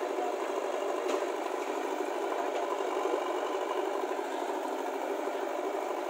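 Diesel engines of a JCB 3DX backhoe loader and a Swaraj 735 FE tractor running steadily while the backhoe loads the trolley, with a single knock about a second in.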